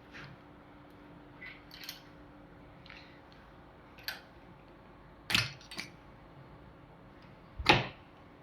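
Small metal hand tool clicking and scraping against a rear shock absorber's internal circlip and body as the clip is pried loose, with a couple of sharper metal knocks, the loudest near the end.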